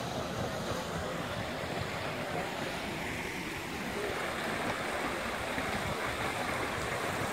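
Steady rush of water over rocks in a shallow stream below a stone dam's spillway: the outflow of a pond being drained.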